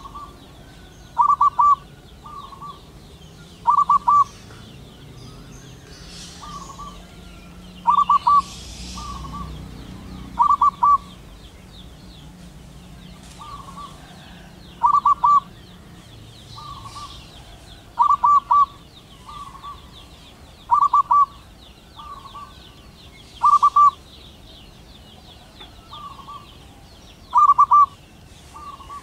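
Zebra dove cooing: short, quick, stuttering coos repeated every two to four seconds, louder groups alternating with softer ones.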